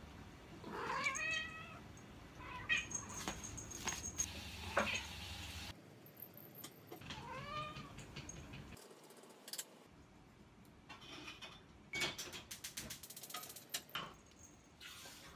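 Domestic cat meowing a few times, with long calls that rise and fall in pitch about a second in and again around seven seconds, calling for its owner's attention. Light clicks and taps come in between.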